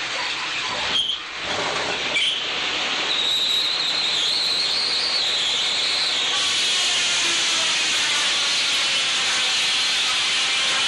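Sawmill saw cutting through a log: a loud, steady rushing noise with a high whine that wavers for a few seconds, and a couple of knocks early in.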